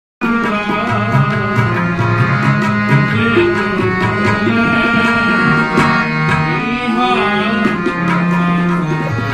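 Sikh kirtan: a hand-pumped harmonium playing sustained chords under men singing gurbani, with tabla strokes keeping the beat.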